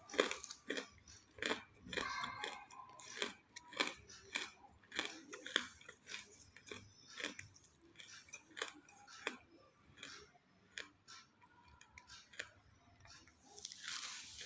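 A person chewing and crunching pieces of roasted clay: a run of irregular short, sharp crunches, with a louder, denser crumbling near the end.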